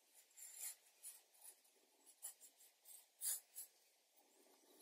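Graphite pencil sketching lightly on heavy Bockingford watercolour paper: a few faint, short scratching strokes, the loudest about three seconds in.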